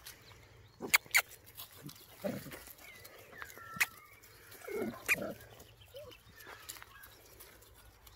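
Eight-week-old puppies play-fighting, giving short low grunts and growls a few times, mixed with several sharp clicks.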